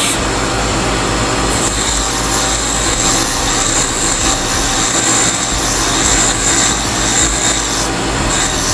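Wood lathe motor running steadily while a round mini file rubs against the spinning wooden chess piece, shaping the inside curve of a cove under gentle pressure; the filing hiss comes and goes from about a second and a half in.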